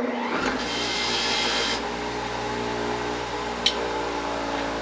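Power tool motor running steadily while deburring freshly drilled pin holes in a metal car door hinge, with a scraping rub against the metal during the first second or so and a sharp click about three and a half seconds in.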